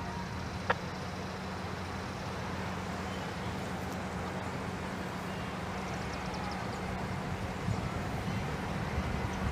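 Outdoor traffic ambience: a steady wash of road noise with a low steady hum, and a single sharp click about a second in.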